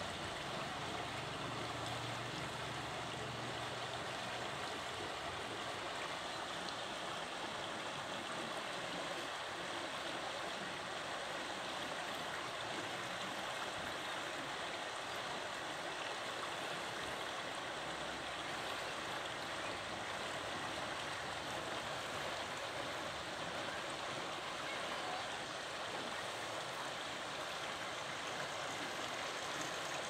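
Shallow river water flowing steadily over a stony, weedy bed, an even rushing babble.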